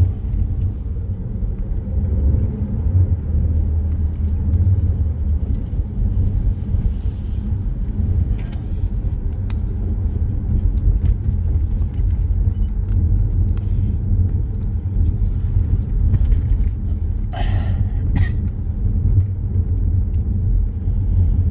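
Low, steady rumble of a car's engine and tyres on a wet road, heard from inside the moving car, with a few short sharper noises about two-thirds of the way through.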